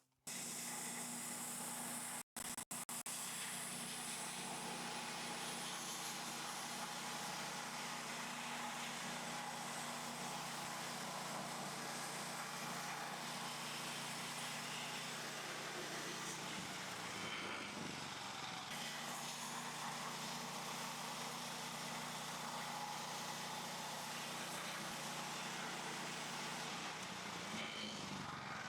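Engine of a MechMaxx portable bandsaw sawmill running steadily, with a short break about two seconds in.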